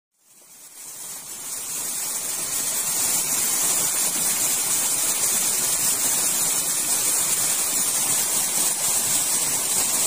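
Water of a small waterfall falling and trickling over rock: a steady rushing hiss that fades in over the first second or two.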